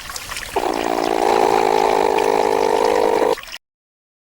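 Platypus calling: one rough, buzzing call about three seconds long, over a hiss of water, that cuts off suddenly.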